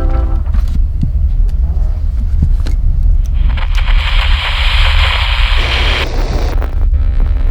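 A steady deep rumble, with a loud hissing rush swelling in about three seconds in and cutting off around six seconds, and a few scattered clicks; a held musical chord comes back in near the end.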